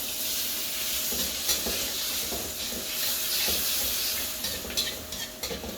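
Evaporated milk sizzling in hot butter with garlic, curry leaves and chili in a pan as it is stirred, with a few light utensil clicks. The sizzle eases off near the end.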